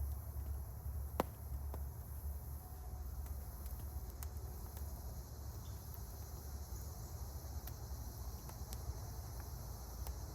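Steady high insect chirring over a low steady rumble, with scattered sharp clicks; the loudest click comes about a second in.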